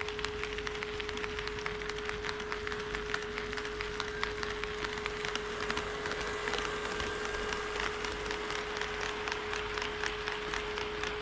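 HO-scale model train running on KATO Unitrack, its wheels making a dense stream of small clicks and rattles over the rail, with a steady hum.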